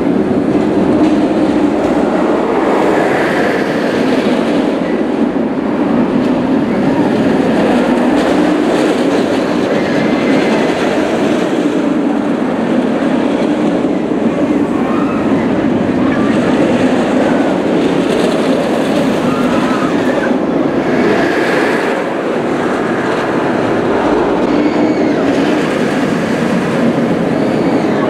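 Steel roller coaster trains running along the track: a steady, loud rolling rumble of wheels on steel rails.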